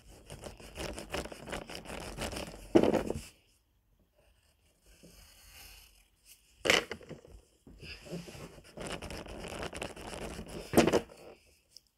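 Pencil scratching on paper in quick strokes, in two stretches with a pause of a few seconds between them, and a few louder knocks.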